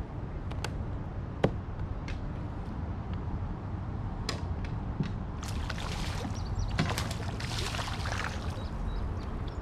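Water splashing and trickling around a kayak, with a few sharp knocks, the loudest about a second and a half in. A steady low rumble runs underneath.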